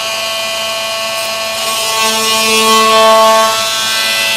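Handheld power cutting tool running at speed with a steady whine while cutting acrylic. Its tone shifts and gets a little louder for a second or so past the middle as it takes load on a second pass through the edge.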